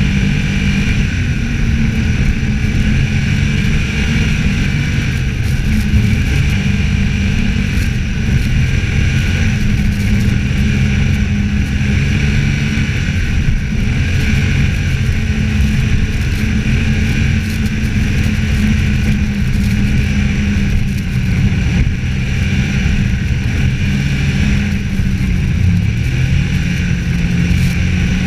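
Snowmobile engine running steadily at riding speed, its pitch rising and falling slightly with the throttle.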